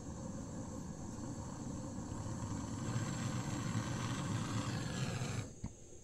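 Gas brazing torch flame rushing steadily as it heats a copper refrigerant pipe joint. It grows louder and cuts off abruptly about five and a half seconds in.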